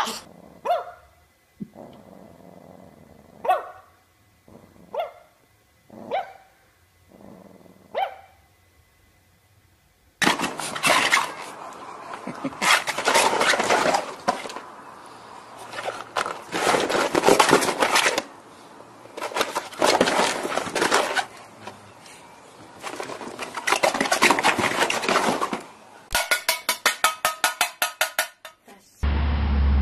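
Dog barking: about six short single barks, each falling in pitch, spread over the first ten seconds. Then a louder stretch of repeated noisy bursts, ending with a fast run of short pulses near the end.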